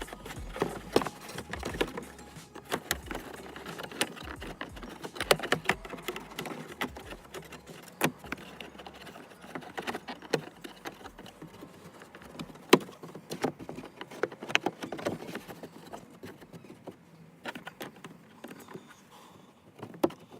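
Irregular light clicks and taps, with a few sharper knocks.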